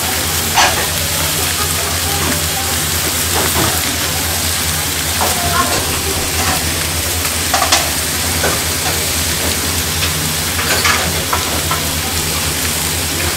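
Food sizzling in stainless steel bibimbap bowls and a frying pan on a gas range: a steady hiss over a low hum, with a few light metal clinks now and then.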